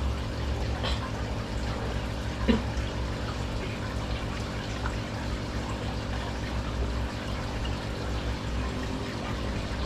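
Aquarium water running and pouring steadily, with a steady low hum under it. There is a single sharp knock about two and a half seconds in.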